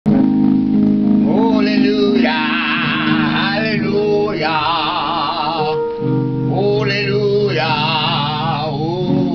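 Gospel-style music: a singer's wavering melody with heavy vibrato, in phrases over long held chords.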